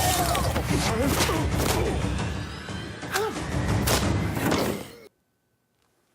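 Animated film teaser soundtrack: music mixed with several heavy thuds and slams and some short gliding pitched sounds, cutting off abruptly about five seconds in.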